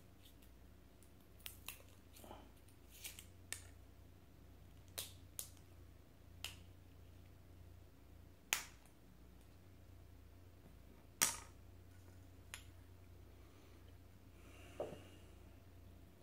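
Gold metal screw cap being twisted off a 1960s miniature bottle of White Horse blended Scotch: a string of separate sharp clicks and crackles as the old cap and seal give way. Near the end comes a brief soft rush as the whisky is poured into a glass.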